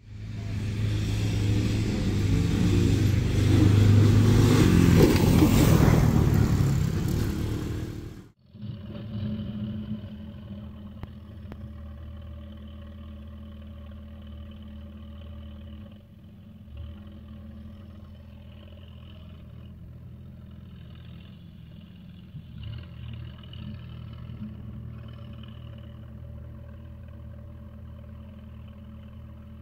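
For about eight seconds a loud, close engine runs with heavy clatter, then cuts off abruptly. After that the Case diesel tractor's engine is heard from a distance, running steadily as it plows snow, with a few brief rises in engine speed.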